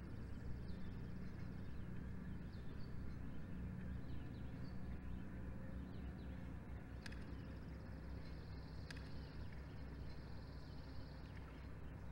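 Faint outdoor ambience: a low steady rumble, with a small bird's high, fast trill heard at the start and again from about seven to eleven seconds in, and two sharp clicks between.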